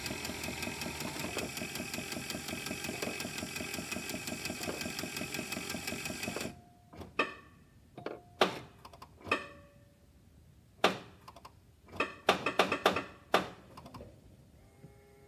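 Cadillac Allante's starter cranking the engine steadily for about six seconds without it firing, then cutting off suddenly. Several separate clicks and knocks follow.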